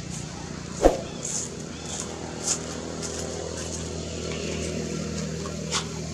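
A motor engine running steadily in the background. A sharp knock comes about a second in, with a few short high chirps and two softer clicks later.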